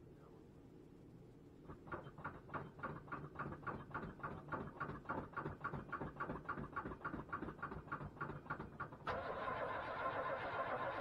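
1978 GMC Suburban engine cranking on the starter in a cold start at about 12 degrees with no choke: even chugging strokes about four to five a second for some seven seconds, then the engine catches about nine seconds in and runs steadily and louder.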